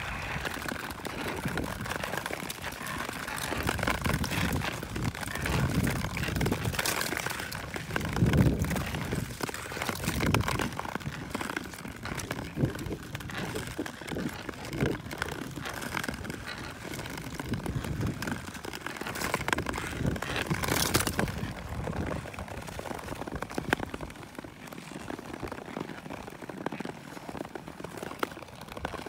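Touring skate blades scraping and gliding over clear black lake ice, stroke after stroke, in an uneven rhythm.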